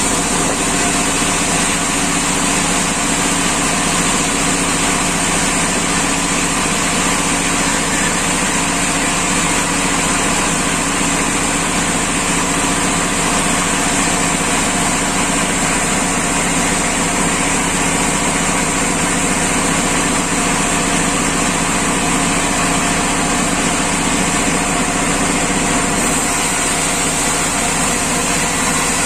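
Sawmill machinery running steadily, an engine hum with a high, even whine and no change in level.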